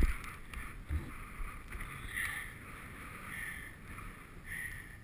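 Skis sliding through snow: a soft repeated swishing hiss, with a knock right at the start.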